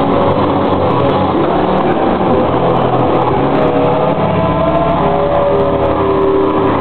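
Band playing loud with distorted electric guitar and drums, picked up by an overloaded camcorder microphone as a dense, muddy wall of sound with no breaks. Sustained guitar notes shift pitch about halfway through.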